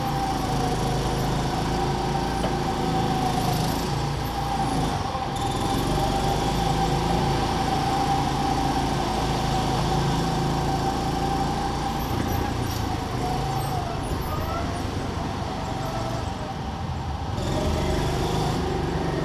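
Go-kart motor running on track, a steady whine that dips briefly in pitch a few times.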